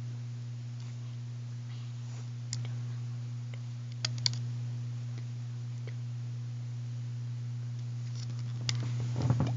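A few sparse, light clicks of rubber loom bands and fingers against the plastic pegs of a Rainbow Loom as bands are looped from peg to peg, over a steady low hum.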